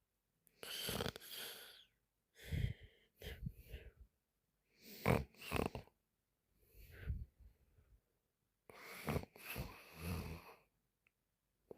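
A sleeping woman snoring and breathing noisily: about six rough breaths at uneven intervals, with short quiet gaps between them.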